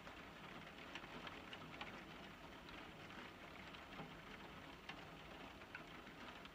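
Near silence: faint steady room hiss with a few soft ticks scattered through.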